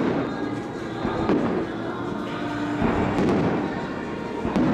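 Aerial fireworks shells bursting overhead, about four booms a second or so apart, over faint show music from distant loudspeakers.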